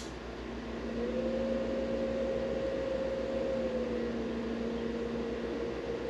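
Inverter's power switch clicks on, then about a second later a steady electrical hum sets in as the mini fridge's compressor tries and fails to start on the 500 W pure sine wave inverter. The hum dips slightly in pitch about two-thirds through. This stalled-start hum is the sign that the inverter cannot deliver the compressor's starting surge.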